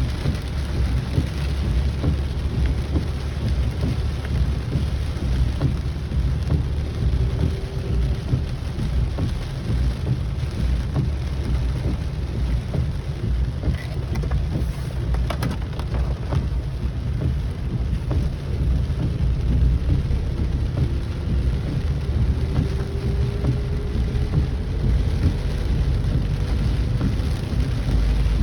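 Heavy rain falling steadily, over a continuous low rumble.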